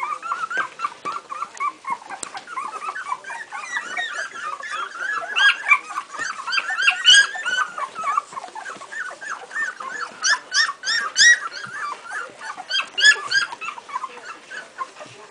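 A litter of two-week-old Airedale terrier puppies whimpering and squeaking: many short, high squeaks overlapping without a break, with several louder flurries.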